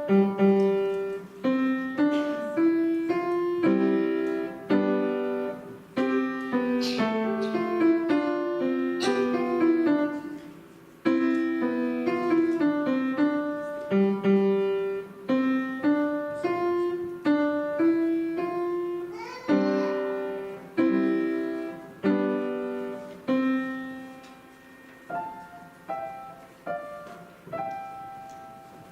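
Solo piano piece: a steady flow of chords under a melody, each note struck and then fading. Over the last few seconds it turns softer, with fewer, more widely spaced notes as the piece winds down.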